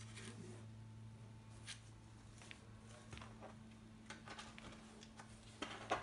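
Faint scattered scrapes and rustles of cats moving in and against a cardboard box, over a steady low hum; a louder cluster of scrapes near the end.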